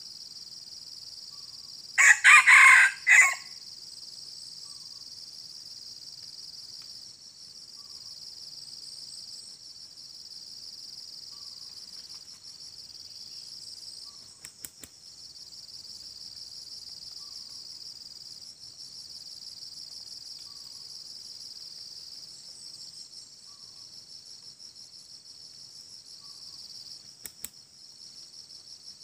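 A junglefowl rooster crows once, a short, clipped crow about two seconds in, over a steady high drone of insects.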